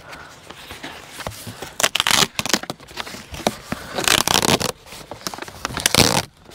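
Sheets of cardboard being handled and laid down: irregular scraping, flapping and crinkling noises, loudest about two seconds in, again around four seconds in and near the end.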